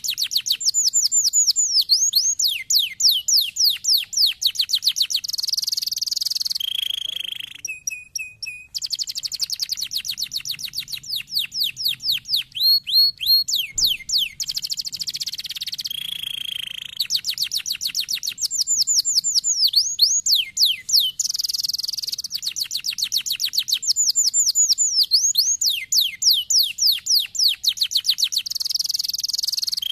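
Domestic canary singing a long song. It runs through rapid trills of falling whistles, buzzy rolls and short held notes, with a brief break about a quarter of the way through.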